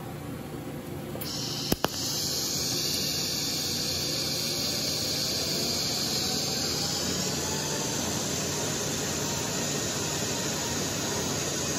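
TIG welding arc at 150 amps DC on thick stainless steel. It starts about a second in with a sharp click, then burns with a steady hiss.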